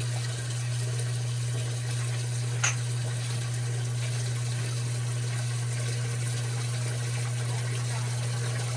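Zoeller 50 series submersible sump pump running with a steady low hum while it pumps water out of the sump, with one sharp click about two and a half seconds in.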